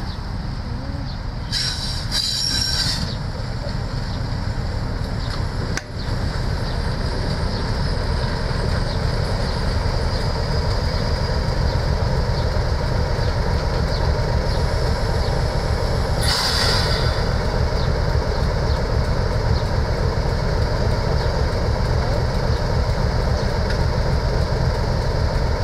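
Class 31 diesel-electric locomotive with its English Electric V12 engine running, drawing coaches slowly into a station; the low engine and rail rumble grows steadily louder as it approaches. Two short high-pitched metallic squeals come from the train, about two seconds in and again about sixteen seconds in.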